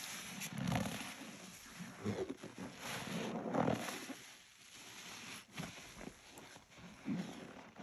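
Rubber-gloved hands squeezing a sponge loaded with Ajax detergent: a string of irregular, dry squeezes, each a short wet crackle with a hiss of foam.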